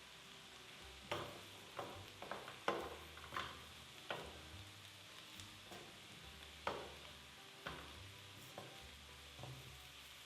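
Food sizzling in a frying pan while a utensil stirs it, knocking and scraping against the pan at irregular intervals from about a second in.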